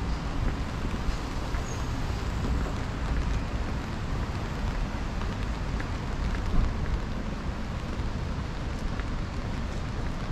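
Steady rain hissing on a city street over a low, constant rumble, with a few faint drop ticks.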